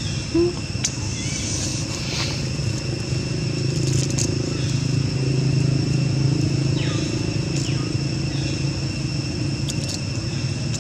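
Steady outdoor background of a low hum and a continuous high whine. Over it come faint crackles and scrapes of dry leaf litter as long-tailed macaques move and handle leaves, and one short squeak about half a second in.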